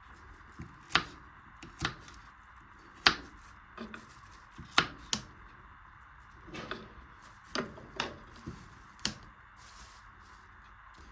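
Irregular sharp knocks of a knife chopping on a cutting board, about ten strokes in all, over a faint steady hiss.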